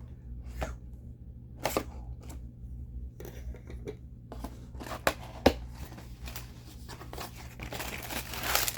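Action figure packaging being handled and opened: scattered plastic clicks and short rustles, with two sharp clicks about five seconds in and denser rustling and crinkling near the end.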